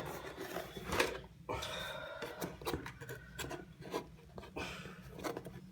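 Pocketknife blade cutting open a cardboard mailing box: scraping and rubbing against the cardboard, with a longer rasping stroke about two seconds in and scattered small clicks and knocks.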